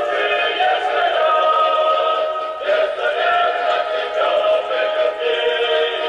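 Music with singing played through a University Sound CFID 32-T horn loudspeaker driven by a Bogen TPU-100 PA amplifier. The sound is thin and midrange-heavy, with no bass.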